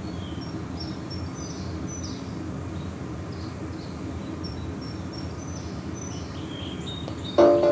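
Outdoor ambience: small birds chirping again and again with short high falling calls over a low steady rumble. Music starts suddenly near the end, much louder.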